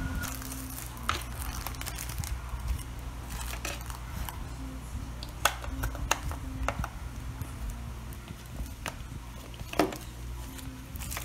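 Scattered sharp clicks and light rustling from hands working the wiring and plastic connector inside a scooter's taillight housing, over a steady low hum.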